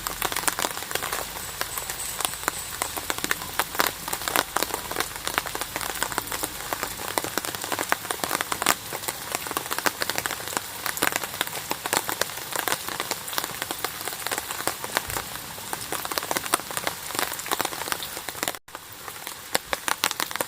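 Steady rain, many drops striking close by in a dense stream of ticks. It breaks off for an instant near the end, then carries on.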